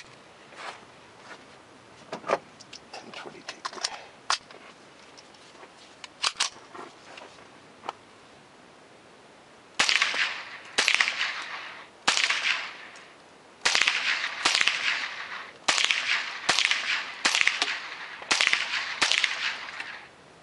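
Ruger 10/22 Takedown, a .22 LR semi-automatic rifle, firing about ten shots at an uneven pace of roughly one a second, each crack followed by a ringing echo. A few light clicks come before the shooting starts.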